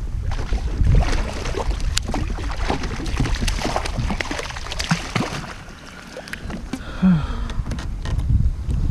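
Water splashing and small knocks around a fishing kayak, with wind rumbling on the microphone.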